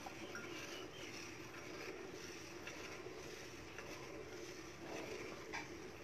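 Milk squirting in streams from a water buffalo's teats into a steel bucket under hand milking, a steady swishing into the milk already in the pail.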